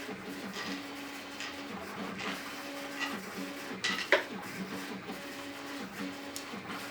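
A small motor runs continuously, its low hum stepping back and forth between two pitches. A single sharp metallic clink comes about four seconds in.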